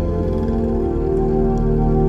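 Background music of long, sustained chords over a low steady drone.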